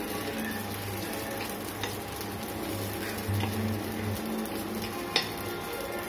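Paniyaram sizzling in oil in the wells of a paniyaram pan while a metal spoon turns them, scraping and clicking against the pan, with one sharp tap a little after five seconds in.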